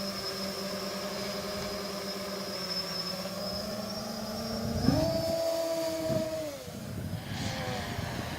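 Wooden box-frame quadcopter's motors and propellers humming steadily in flight. About five seconds in, the pitch jumps up as the throttle is raised, then slides back down a second and a half later.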